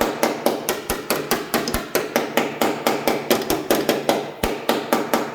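A small hammer tapping rapidly and evenly on a Ford F-150 aluminum door panel, about six light strikes a second.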